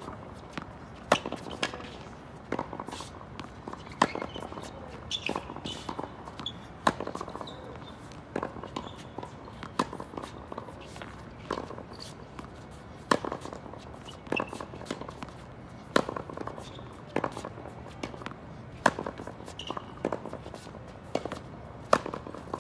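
Tennis rally against a concrete hitting wall: sharp pops of the ball off the racket strings and off the wall, the loudest about every three seconds, with the ball's bounces on the hard court and shoe scuffs in between.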